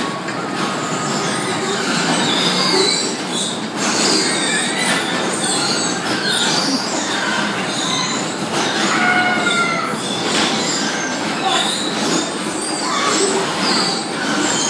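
Steady, dense din of a busy bumper-car rink: the cars running and bumping, with many short high squeals scattered throughout.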